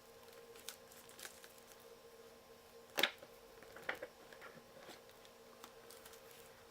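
Packaging of a sealed tarot deck being opened by hand: light scattered crackles and clicks, with a sharper snap about three seconds in and another just before four seconds.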